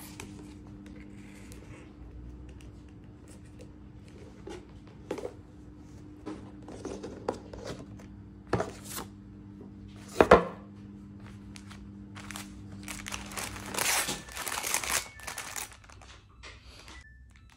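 A cardboard scarf box being opened and handled: scattered taps and knocks, one louder knock about ten seconds in, then packaging crinkling near the end. A faint steady hum sits underneath until near the end.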